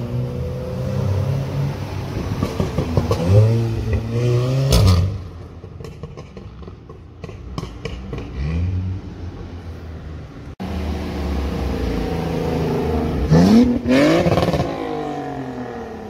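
Car engines running on the road, with cars accelerating past in two loud passes, their engine notes rising in pitch, the first about four seconds in and the second near the end.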